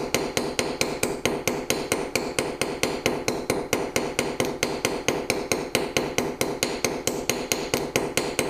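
Small rounded-face goldsmith's hammer gently tapping a copper tube rivet against a steel bench block, in a fast, even run of light metallic taps at about four to five a second, flaring the end of the tube over.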